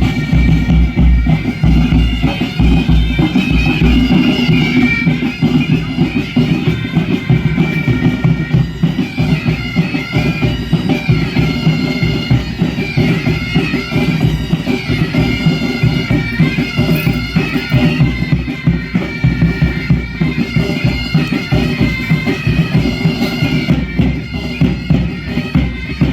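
Bagpipes playing a lively tune over a steady drone, with drums beating along, as music for a kukri dance.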